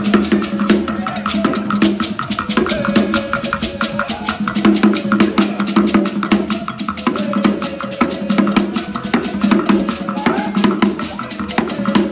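African drum music: fast, dense percussion with drums and sharp wood-block-like clicks over held melodic notes.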